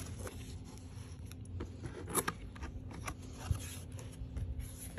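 Cardboard camera box handled and opened by hand: scraping and rustling of the lid and inner packaging, with a few sharp clicks and taps, the loudest about two seconds in.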